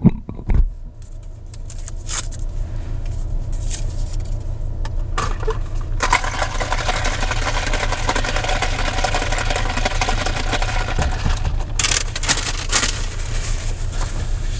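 Car engine and road noise heard from inside the cabin: a steady low hum that builds over the first several seconds as the car gets under way, then a rushing drone. A few clicks and rattles come through, the loudest cluster near the end.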